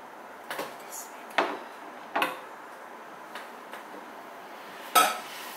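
A metal ladle clinking against glass dishes while water kimchi is ladled from a glass container into a small glass bowl: four short clinks, the loudest near the end.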